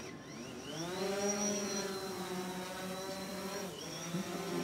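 Quadcopter drone's electric motors and propellers spinning up, the hum rising in pitch over the first second and then holding a steady whine, with a brief dip and recovery about four seconds in.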